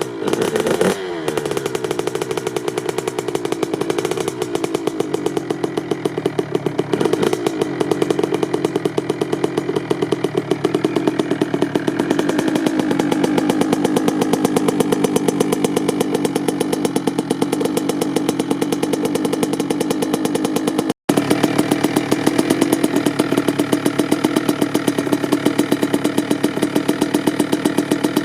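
Kawasaki KX65's small two-stroke single-cylinder engine running at a steady fast idle, its revs dropping back about a second in and then holding an even pulsing beat.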